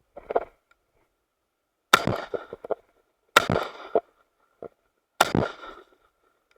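Three shotgun shots about a second and a half apart, each trailing off in a short echo.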